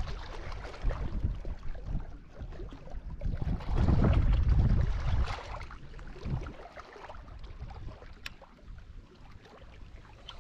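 Wind buffeting the microphone in gusts, with a strong gust about four seconds in that dies down toward the end. A single faint click comes near the end.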